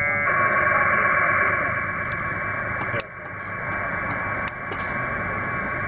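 Packet radio data transmission, a text message being sent by the WinPack packet program: a loud, steady, buzzy two-tone modem warble, with a brief dip about three seconds in.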